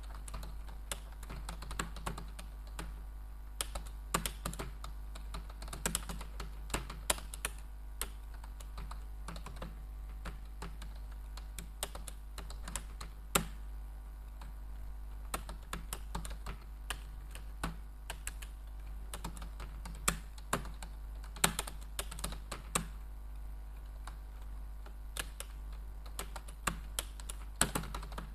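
Typing on a computer keyboard: a steady run of irregular key clicks with occasional louder strokes, over a steady low hum.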